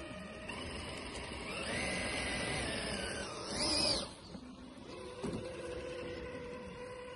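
Traxxas TRX-4 RC crawler's electric motor and geared drivetrain whining as it climbs through snow. The whine rises in pitch to its loudest at about four seconds while the wheels spin and throw snow, then drops off sharply, with a short knock about a second later.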